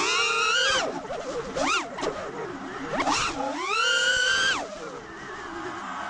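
FPV quadcopter's brushless motors and propellers whining, the pitch swooping up and down with sharp throttle changes, held high for about a second around the middle and dropping lower near the end.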